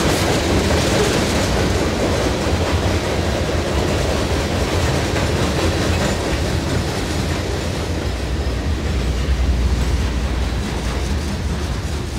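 Freight train cars, covered hoppers and then intermodal container well cars, rolling past on the rails: steady wheel-and-rail rumble that eases slightly near the end as the last cars go by.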